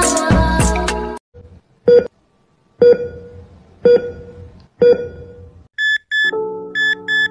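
Bass-heavy music cuts off about a second in. A heart-monitor sound effect follows: four electronic beeps about a second apart, then near the end quicker, higher-pitched beeps over a sustained electronic chord.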